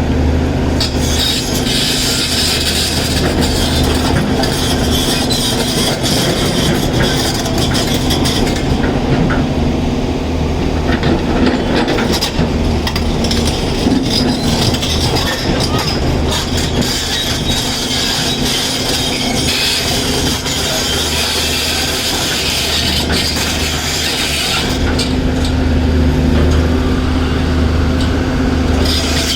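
Caterpillar 336 excavator's diesel engine running steadily under load, with rock and steel scraping and clattering in stretches as it works the rock.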